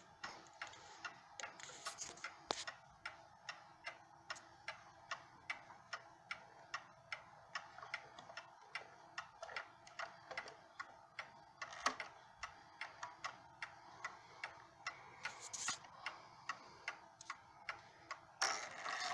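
Ansonia eight-day mantel clock movement ticking evenly, about two to three ticks a second; the movement has been cleaned, oiled and adjusted. A louder steady noise comes in under the ticks near the end.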